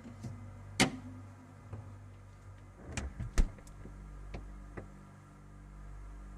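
Things being handled at an open refrigerator: a sharp knock about a second in, a quick cluster of clatters about three seconds in, and two lighter taps after that, over a steady low hum.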